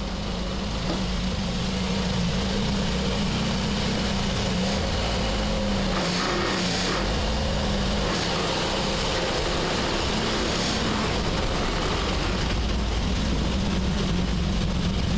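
A 1966 Triumph Spitfire's 1147cc four-cylinder engine running at a steady pitch.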